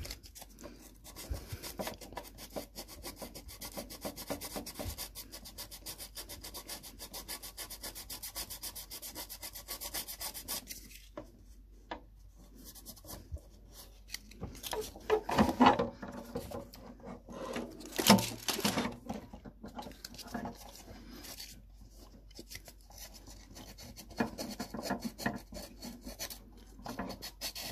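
Fine 320-grit wet-and-dry sandpaper rubbing back and forth in quick, rapid strokes on the hard plastic of a car dashboard storage-lid catch, smoothing down a raised edge. The steady sanding stops about eleven seconds in, giving way to irregular rubs and a few knocks of handling on the plastic.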